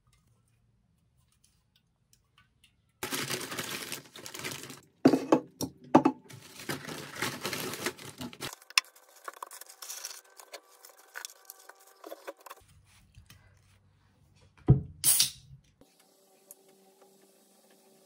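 Paper rustling and crinkling as a takeaway paper bag and food cartons are unpacked, with light knocks and clicks of items set on a desk. About fifteen seconds in, a drink can is cracked open with a thump and a short sharp hiss, followed by faint fizzing.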